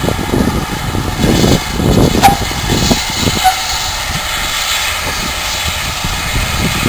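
Wind buffeting the microphone in irregular low rumbles over a steady hiss, with a short sharp click a little over two seconds in.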